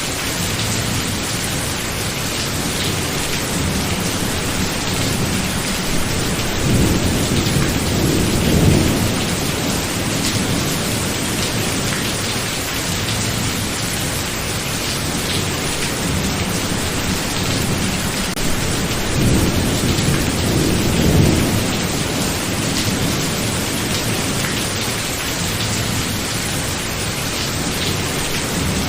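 Thunderstorm: steady heavy rain, with two low rolls of thunder swelling and fading, one about a quarter of the way in and another about two-thirds through.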